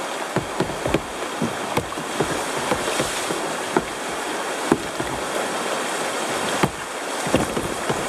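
River rapids rushing steadily around kayaks, with scattered short splashes and knocks of paddles and water against the plastic hulls.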